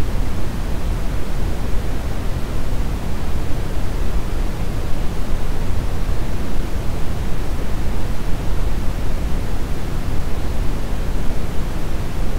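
Steady brown noise: an even, deep rushing hiss, strongest in the bass and falling off toward the treble, with no changes or events.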